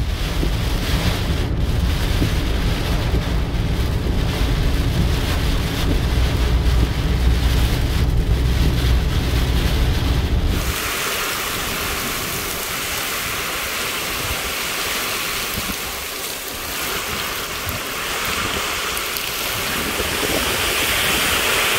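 Hurricane wind and driven rain, with heavy wind buffeting the microphone for about the first ten seconds. Then the sound changes abruptly to a steadier hiss of wind and rain without the low rumble.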